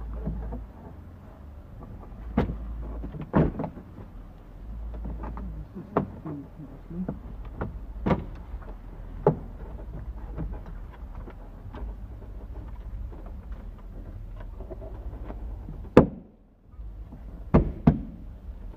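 Irregular clicks and knocks of plastic car interior trim being handled and pressed into place at the A-pillar and headliner, with a sharp snap about two-thirds of the way in and two more near the end. A steady low hum runs underneath.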